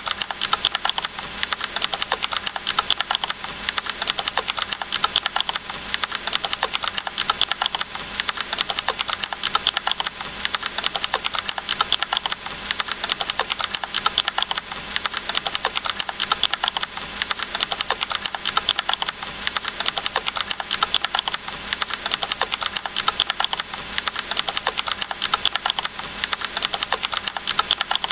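Typing sound effect: rapid keyboard keystroke clicks repeated in a dense, steady stream, with a faint high-pitched whine over them.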